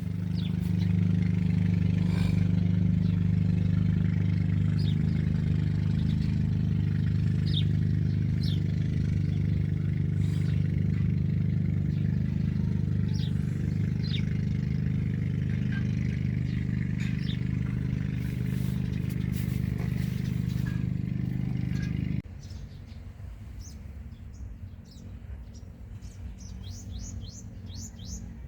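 Small birds chirping in short, scattered calls over a steady low hum that cuts off suddenly about three-quarters of the way through, leaving the chirps and a quick run of calls near the end.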